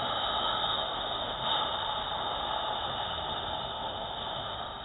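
A long, slow, whispered exhalation: the subvocal spleen healing sound ("whoooo") of Taoist Six Healing Sounds practice. It is breathy and even, with no voiced pitch, and it fades gradually near the end.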